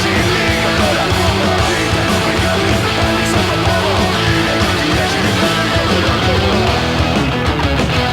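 Punk rock played back from a vinyl record: a full band with loud, distorted electric guitars and drums playing a steady, dense rock passage.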